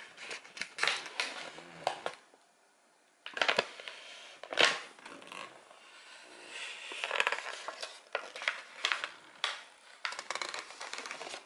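A paper bag crinkling and rustling as hands unfold it and pull it open. The crackling comes in irregular bursts with sharp crackles, with a pause of about a second two seconds in.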